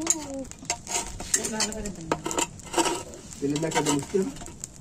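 A utensil scraping and clinking in a chitoi pitha pan, working loose rice cakes that are sticking to it, with irregular sharp knocks and scrapes and some sizzling.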